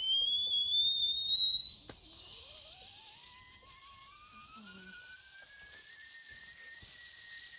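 Whistling kettle coming to the boil: a shrill whistle of several tones together that rises in pitch and grows louder over the first few seconds, then holds steady at full whistle.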